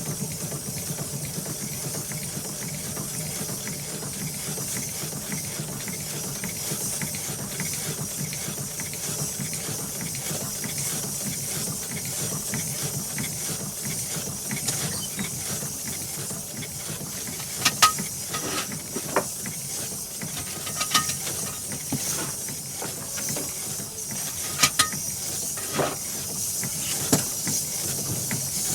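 Engine running steadily: a low hum under a constant hiss. Several short, sharp clicks come in the second half.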